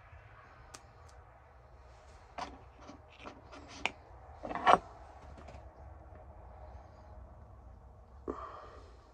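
A few scattered clicks and knocks, like objects being handled, over a faint low rumble; the loudest knock comes about halfway through.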